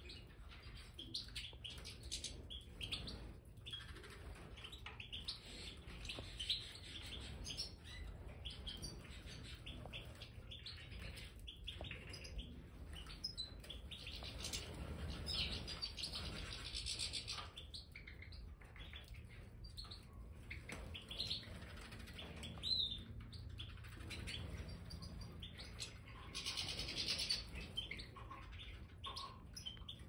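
European goldfinches (Major goldfinch colour mutations) twittering and calling in an aviary: many short chirps throughout, with busier stretches of twittering about halfway through and again near the end.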